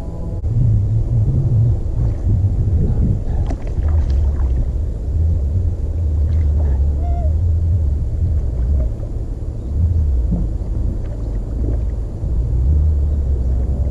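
Bass boat under way on the water, a loud, uneven low rumble of motor and wind.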